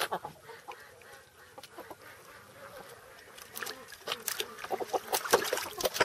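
Chickens clucking and squawking in a pen, with a flurry of short clicks and knocks in the second half.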